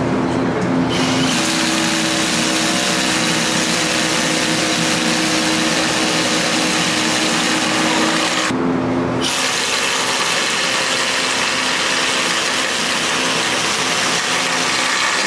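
Cordless hammer drill boring into a concrete wall, running steadily from about a second in. It stops briefly around eight and a half seconds, then starts drilling again.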